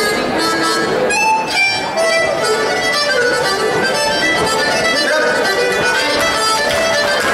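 Live Irish traditional dance tune, with the squeezebox carrying the melody over acoustic guitar strumming and the fiddle playing along.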